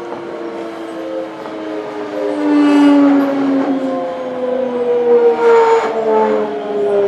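Toei 5300-series electric train's VVVF inverter and traction motors whining in several tones that slowly fall in pitch as the train slows along the platform, with two brief louder rushes of noise about three and five and a half seconds in.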